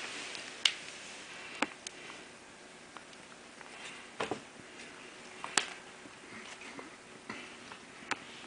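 Scattered light thumps and taps a second or more apart, the loudest about half a second and five and a half seconds in: a cat tossing a dead bird into the air and pouncing on it as it lands.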